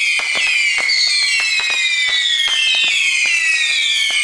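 Consumer fireworks going off: many overlapping high whistles, each falling in pitch, over a constant run of sharp crackling pops.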